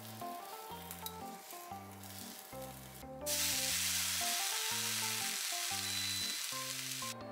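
Light background music with a plucked melody and bass. About three seconds in, a loud steady sizzle starts from the hot rectangular tamagoyaki pan as it is taken off the heat to cool, and it cuts off sharply near the end.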